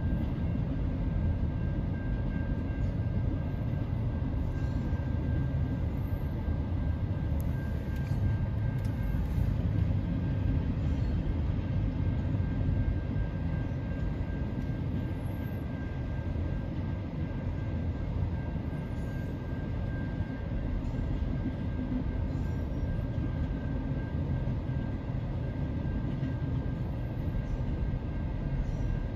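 Double-stack intermodal freight train rolling past a level crossing: a steady low rumble of the well cars' wheels on the rails. A faint steady high tone runs through the first two-thirds, then fades.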